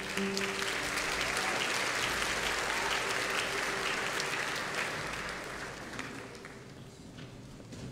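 Large congregation applauding after the closing amen of a prayer, a sustained chord from the worship band's instruments held underneath. The applause fades out over the last two seconds or so.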